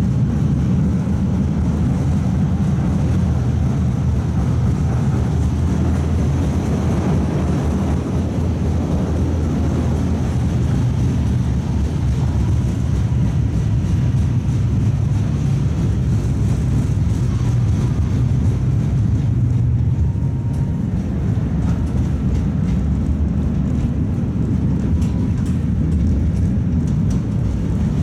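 Tatra T3 tram (MTTCh modernisation) running between stops: a steady, loud low rumble of wheels on rails and running gear, heard from inside the car.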